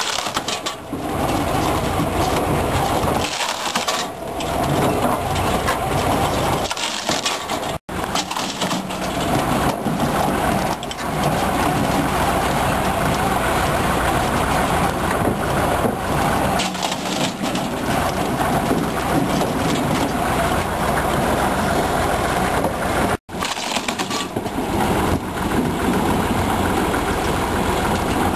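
Weimer HN200 firewood processor running under load, cutting and splitting logs: a loud steady machine drone with wood cracking and crushing through it.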